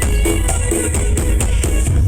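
Loud dance music played through a large carnival sound system, with heavy bass, quick steady percussion and a short repeating melody.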